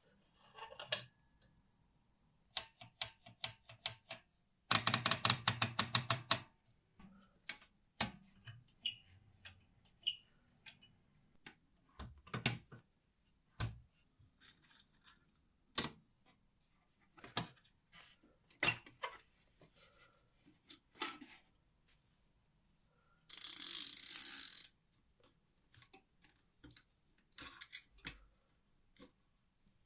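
Sharp metal clicks from an old manual typewriter's mechanism being worked by hand, including a quick ratcheting run of about ten clicks a second near the start and a short rasping scrape later on.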